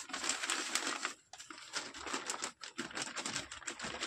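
Thin plastic sheet crinkling in fast crackles as it is slowly peeled away from a wire mesh packed with white star composition, with two brief pauses.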